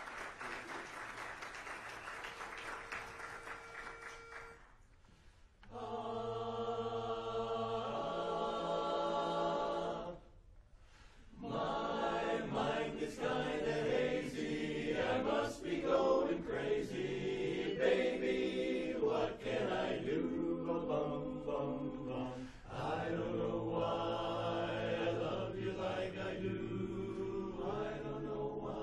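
Applause dies away under a single steady note. Then a mixed barbershop chorus sings a cappella in close four-part harmony: a held opening chord, a brief break about ten seconds in, then the song carries on with moving chords.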